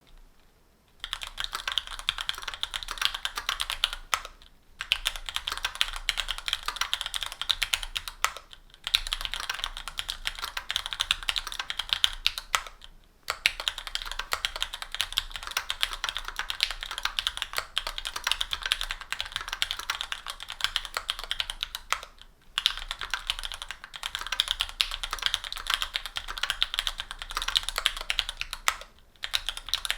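Mechanical keyboard typing on stock, unlubed Gateron Pro Yellow 50 g linear switches in an aluminum-plate board with GMK keycaps and foam dampening. It is a fast, steady clatter of keystrokes that starts about a second in, broken by brief pauses every few seconds.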